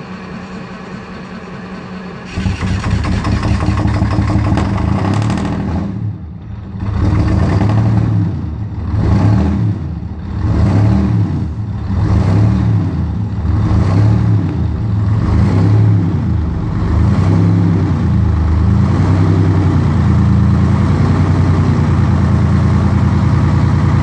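Detroit Diesel 6V92 two-stroke V6 diesel in a fire engine, cold-started after several very cold days. After a steady lower drone it catches about two seconds in, then runs with its revs rising and falling unevenly for some fifteen seconds before settling into a steady idle.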